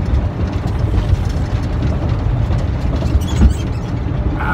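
Loud road noise inside a semi truck's cab on a rough highway: a steady low rumble with rattles and knocks, and a sharper jolt about three and a half seconds in.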